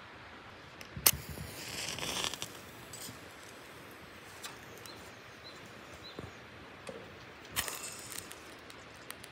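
Handling sounds: a sharp knock about a second in followed by rustling, a few small clicks and taps, then another knock and rustle near the end, over a faint steady outdoor hiss.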